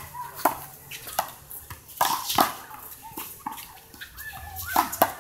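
Handball rally: a series of sharp slaps as a small rubber handball is struck by hand and rebounds off the wall and the court, irregularly spaced, the loudest about two seconds in and again near the end.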